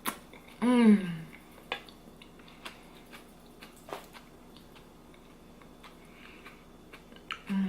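A person chewing a mouthful of potato salad and baked beans close to the microphone, with small wet clicks and lip smacks throughout. About a second in comes a short voiced "mmm" of enjoyment that falls in pitch.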